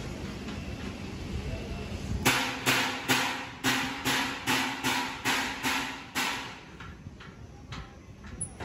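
Metal struck repeatedly: about ten sharp, briefly ringing blows at two to three a second, starting about two seconds in and stopping about six seconds in, over a low background rumble.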